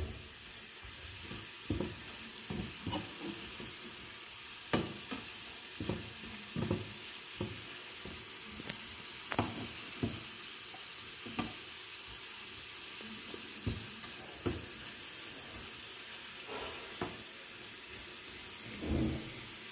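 Potato fingers sizzling steadily in hot oil, semi-deep-fried on a medium flame, while being turned over in the pan. Irregular clicks and scrapes of the utensils against the pan come every second or so.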